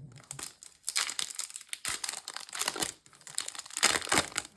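Foil wrapper of a Yu-Gi-Oh booster pack crinkling and tearing as the pack is opened, starting about a second in with a couple of brief pauses.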